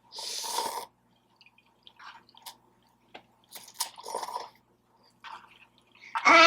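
Close-miked wet chewing and mouth sounds from eating juicy birria tacos dipped in consomé. A louder wet burst comes in the first second, followed by scattered smacks and clicks.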